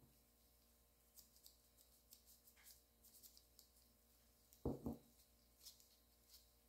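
Faint handling sounds: light ticks and scrapes of a small metal press tool and small plastic cosmetic jars on a paper-covered table, then a short double knock a little past the middle as a jar is handled and set down.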